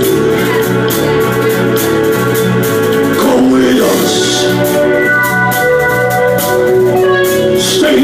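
Live band music: long held keyboard chords over a steady drum beat.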